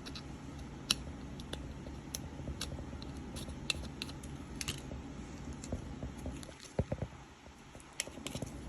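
Small scattered clicks and taps of desoldering tools working a triac's legs on a circuit board, over a steady low hum that drops out briefly near the end.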